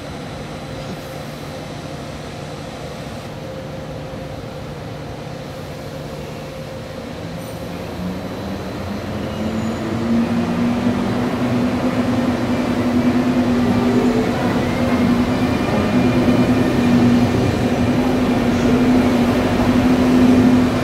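Siemens ES64U2 Taurus electric locomotive pulling a train away. A steady electrical hum gives way, about eight seconds in, to a traction whine that rises in pitch and grows louder as the train gathers speed.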